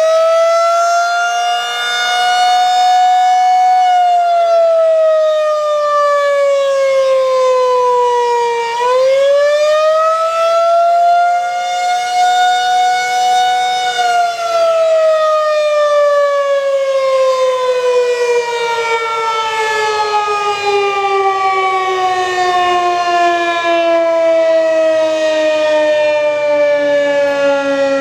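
Federal Signal 2001-SRNB electromechanical outdoor warning siren sounding its attack signal. Its single tone rises, holds, falls, and rises and holds again. About halfway through it starts one long, slow fall in pitch as the rotor winds down at the end of the cycle.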